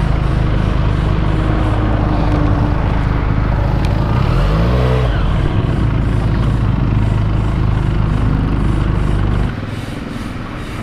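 Benelli 302S's 300cc parallel-twin engine on its stock exhaust, running as the bike is ridden, with a dense low rumble. The engine's pitch rises and falls around four to five seconds in, and the sound drops sharply quieter about nine and a half seconds in.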